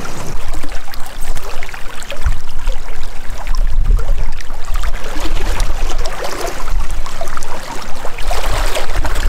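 Fast river current rushing and splashing, with a heavy low rumble on the microphone running under it.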